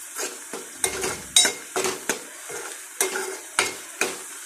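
Steel spoon stirring and scraping against a metal pan, about two strokes a second, while ground onion paste sizzles in hot oil as it fries.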